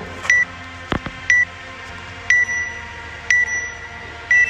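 Workout countdown timer giving five short high beeps, one each second, counting down to the start of a workout. A dull thump about a second in.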